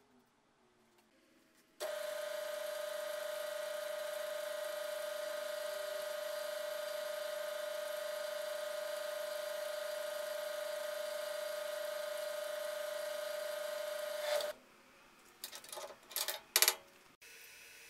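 Drill press running with its bit boring through steel square tubing: a steady, high-pitched whine that starts suddenly about two seconds in and cuts off near the end. A few short, loud squeaks follow.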